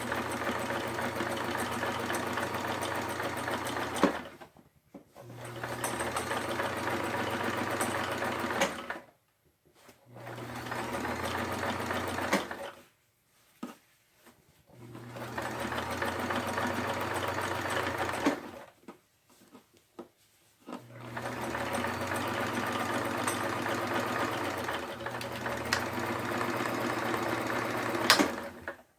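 Kenmore sewing machine stitching through a heavy, denim-like fabric. It runs steadily in five spells of a few seconds each, stopping briefly between them, with a sharp click at the end of the first spell and again near the end.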